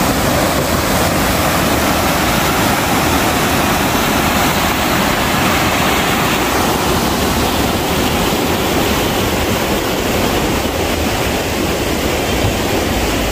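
Loud, steady rushing of a river in flood, the Rio Ipojuca swollen by heavy rain and running high over concrete and debris.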